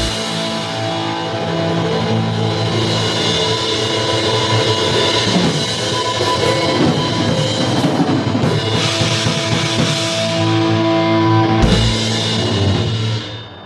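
Rock band playing an instrumental passage on distorted electric guitar, bass guitar and drum kit, ending on a final hit about twelve seconds in that rings out and fades.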